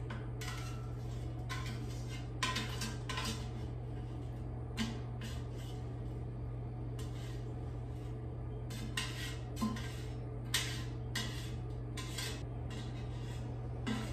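Kitchen spatula scraping and tapping against the nonstick inner basket of an air fryer while scooping out cooked zucchini noodles: a dozen or so short, irregular scrapes and knocks.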